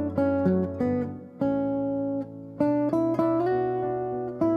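Background music led by an acoustic guitar playing a melody of plucked notes, each note struck sharply and fading, over a steady low bass note.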